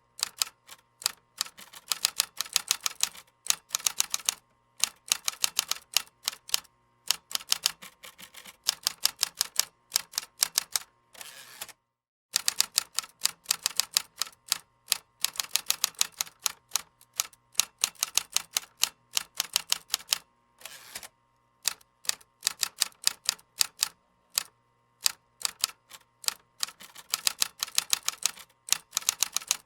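Typing on a computer keyboard: rapid runs of key clicks in bursts, broken by short pauses, with one brief total silence about twelve seconds in.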